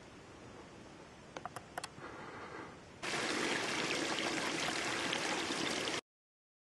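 A small creek trickling and babbling over its bed, starting suddenly about three seconds in and cutting off abruptly near the end. Before it comes quieter outdoor hiss with a few faint clicks.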